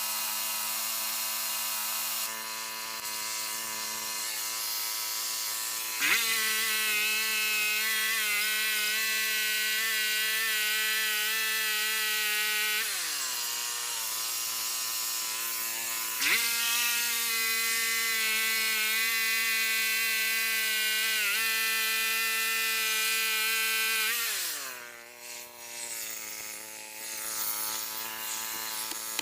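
Portable bandsaw sawmill's engine running steadily, revved up sharply twice and each time winding back down to a lower speed after several seconds.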